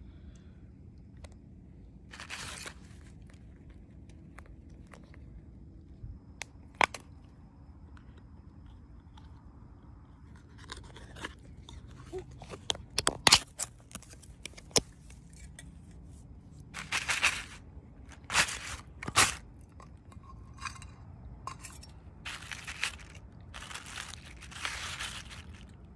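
A pull-tab tin of wet cat food being opened and emptied onto a plastic sheet: scattered clicks and metal cracks, the sharpest a little past halfway, then bursts of scraping and plastic rustling.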